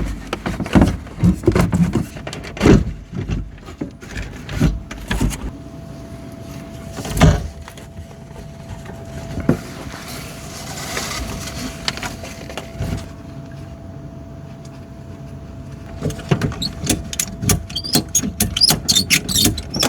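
Knocks, taps and clatter of ABS plastic drain pipe and fittings being handled and pushed into place, with a quick run of rattling clicks near the end. A steady faint hum runs behind from about five seconds in.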